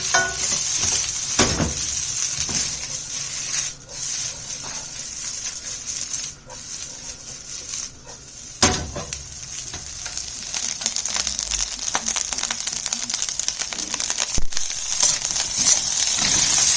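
Fried rice sizzling in a hot pan, with a few sharp knocks as it is stirred. The sizzle drops in the middle and grows louder and more crackly toward the end.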